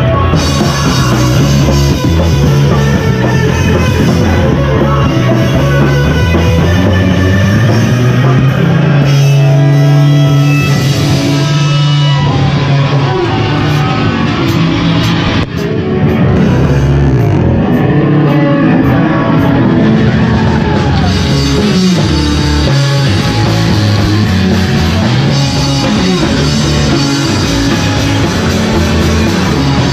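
A live rock band playing loud: electric guitar and drum kit.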